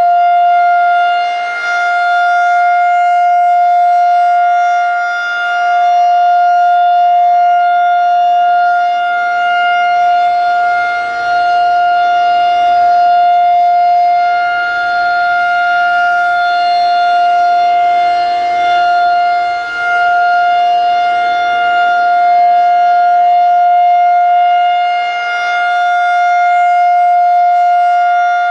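Federal Signal 2001-130 electromechanical rotating tornado siren sounding its full-alert steady tone: one loud, unwavering pitch whose volume swells and fades every several seconds as the rotating horn sweeps past.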